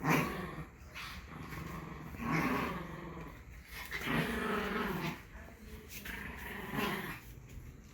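Dog growling in about four rough bursts a couple of seconds apart, the first and loudest at the very start.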